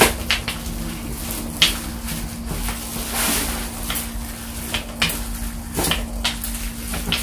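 Rolling pin working dough flat on a plastic cutting board: scattered knocks and clicks with scraping rolls. A steady low hum runs underneath.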